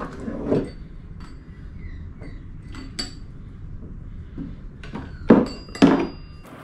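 An electric chain hoist is handled on a wooden workbench, with light metallic clinks from its hook and chain. Near the end come two loud knocks about half a second apart as it is set down on the bench.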